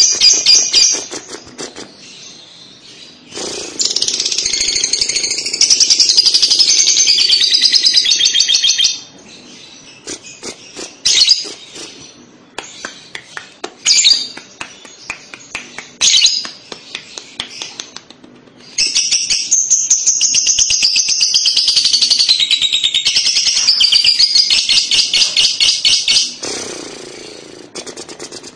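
Fischer's lovebird giving its long, rapid chattering song (the 'kekek' or ngekek) in two long high-pitched bouts, with a few short sharp chirps between them.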